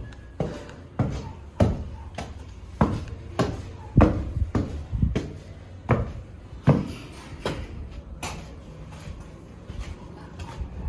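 Footsteps on a hard floor, a steady step about every two-thirds of a second.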